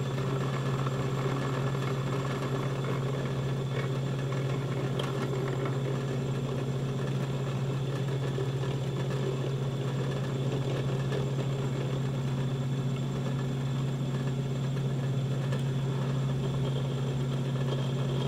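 Benchtop drill press motor running at a steady hum while an eighth-inch bit is fed down into a paddle shaft to drill a rivet hole.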